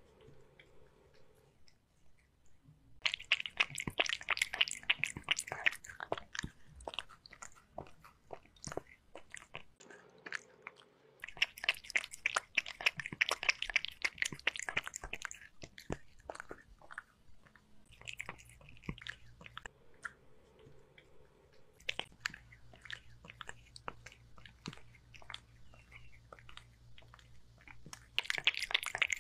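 Kitten lapping broth from a glass bowl in bursts of quick clicking licks, a few seconds at a time with pauses between.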